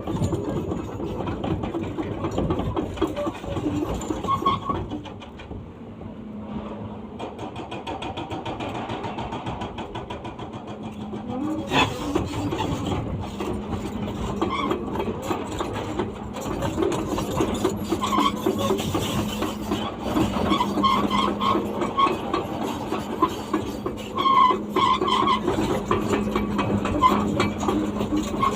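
Excavator's hydraulic hammer breaker pounding with rapid repeated blows over the steady hum of the diesel engine. It eases off for several seconds about a fifth of the way in, then resumes with a sharp strike.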